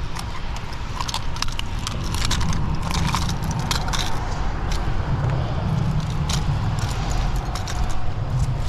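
Metal pliers and the popper's treble hooks clicking and clinking in quick, irregular taps while the hooks are worked out of a bluefish's mouth, over a steady low rumble.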